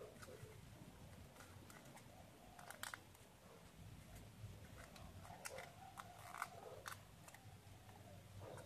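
Faint crackle and rustle of a sheet of origami paper being creased and folded by hand, with sharper crinkles about three seconds in and again between five and seven seconds, over a faint low hum.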